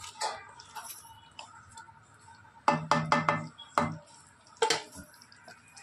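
A metal utensil knocking against a metal cooking pot: a quick run of about five sharp knocks just under three seconds in, then two single knocks.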